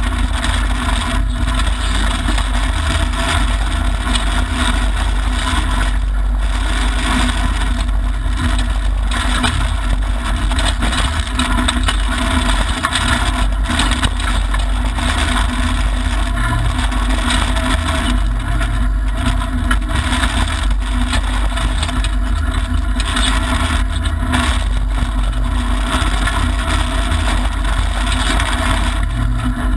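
Mitsubishi Lancer Evolution IX rally car at speed on a dirt road, heard from inside the cabin: its turbocharged four-cylinder engine running under a steady, heavy rumble of tyre and road noise.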